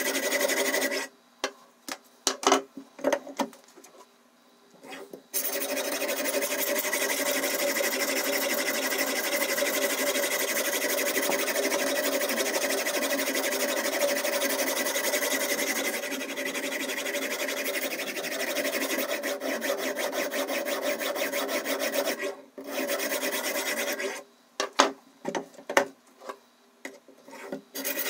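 A diamond whetstone on the Ruixin Pro RX 008 guided sharpener's arm rasps steadily along a steak knife's edge. The rasping stops twice, about a second in and again near the end, for short runs of clicks and knocks as the knife clamp is turned over to sharpen the other side.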